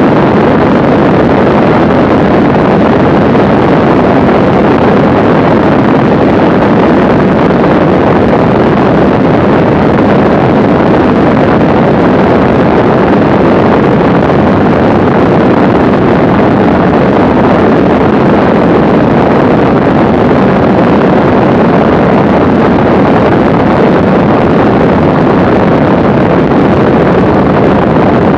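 Steady, loud noise of a Mooney M20C single-engine light aircraft in cruise flight: the rush of air past the airframe and microphone blended with the engine's drone, unchanging throughout.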